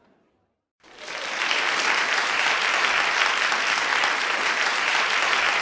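Crowd applauding, starting about a second in after a short silence and then holding steady.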